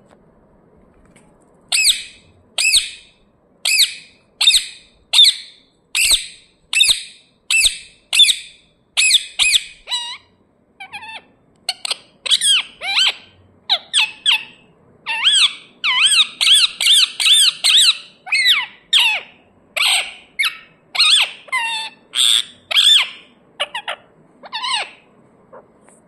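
Rose-ringed (Indian ringneck) parakeet squawking: loud, shrill, repeated calls, about one a second at first, then faster and more varied in the second half.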